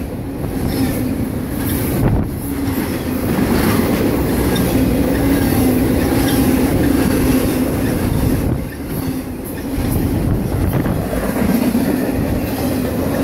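Intermodal freight train of flatcars carrying truck trailers rolling past close by at speed: a steady rumble of steel wheels on rail with a low hum running through it, briefly quieter about two-thirds of the way through.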